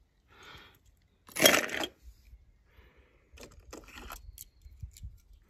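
Small hard clicks and light clatter of a toy car being handled and fitted into a slot of a plastic toy car carrying case, after a brief louder rustling noise about a second and a half in.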